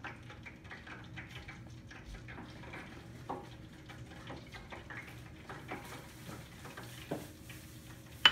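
Light clinks and scrapes of utensils and dishes as bacon is worked through egg and flour for breading, with two louder knocks about three and seven seconds in, over a faint steady hum.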